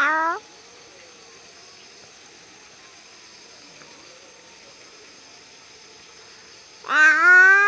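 A long drawn-out vocal call, one steady held pitch that rises at its end, comes in about seven seconds in and is cut off; the tail of a similar rising call ends just after the start. Between them there is only faint steady hiss.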